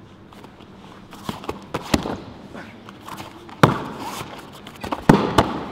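Slaps and thuds of an aikido partner's hands, feet and body hitting foam puzzle mats as he is taken down and pinned. Several lighter slaps in the first two seconds, then two louder thuds about three and a half and five seconds in.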